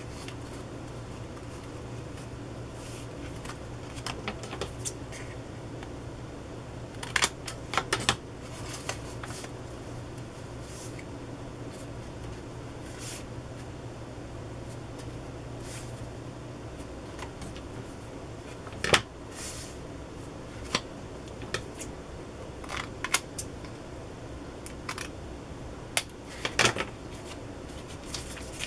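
Paper and cardstock being handled and rustled, with a few short, sharp crinkles and taps scattered through. A faint low steady hum runs underneath and stops about two-thirds of the way through.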